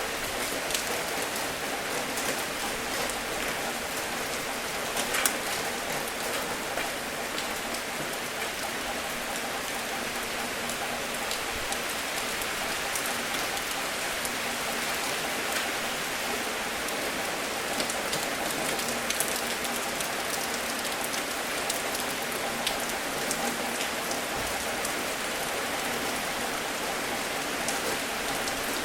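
Steady rain falling, with individual drops striking sharply now and then, one louder drop about five seconds in.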